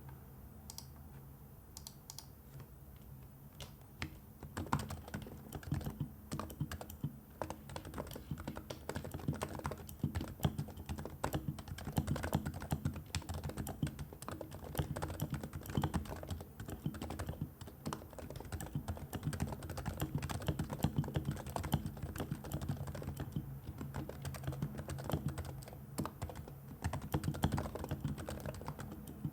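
Typing on a Realforce R2 Topre tenkeyless keyboard fitted with silencing rings and PBT keycaps. A few scattered keystrokes at first, then steady fast typing from about four seconds in.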